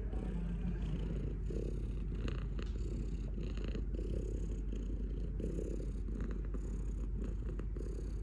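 Domestic cat purring steadily, a continuous low rumble.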